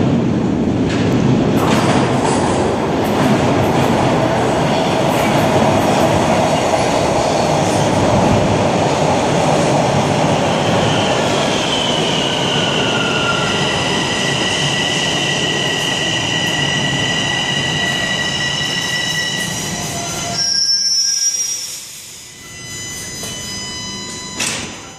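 Bombardier Toronto Rocket subway train pulling into the station: a loud rumble of wheels on rail as the cars pass, with high steady whining tones joining about halfway through as it brakes. It comes to a stop about 20 seconds in with a brief high sound, after which it is much quieter, with a sharp noise near the end.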